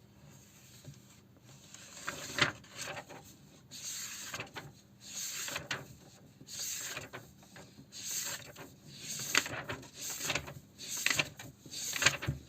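Pencil scratching on paper in a run of short strokes that start about two seconds in, with a few sharp taps among them.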